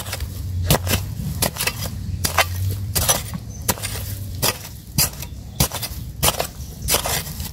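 A metal hand spade chopping again and again into dry, crumbly soil, about two sharp strikes a second, each one scattering clods of dirt.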